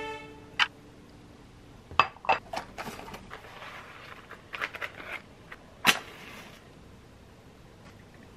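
Light clinks of a glass candle lid and the rustle of a box of wooden matches being handled, then a match struck once against the box, flaring with a short hiss about two-thirds of the way through.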